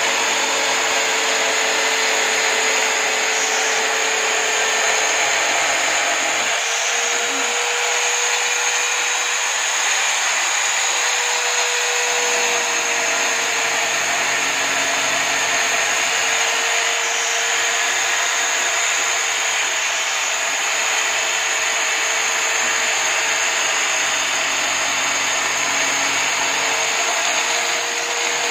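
Electric drill mounted upright in a drill stand as a homemade sander, running continuously while the edge of a wooden board is pressed against its sandpaper. It makes a steady motor whine with a gritty sanding hiss, and its pitch dips and recovers slightly as the load changes.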